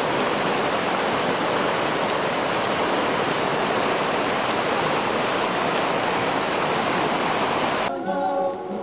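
Whitewater rapids of a mountain river rushing steadily. The sound cuts off suddenly near the end as music comes in.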